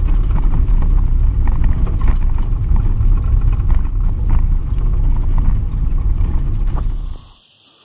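A vehicle driving on a gravel road: a loud, steady low rumble of engine and road noise with gravel crackling under the tyres. The sound cuts off abruptly about seven seconds in.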